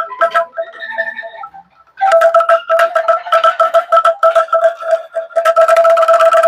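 Bamboo angklung being shaken: a few short notes at different pitches, then from about two seconds in its tubes rattle rapidly in the frame, sounding one sustained note.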